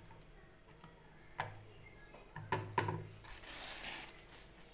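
A metal roti press being worked: a few sharp knocks from its lid and handle, then a short rustle of plastic sheeting near the end as the press is opened on the flattened dough.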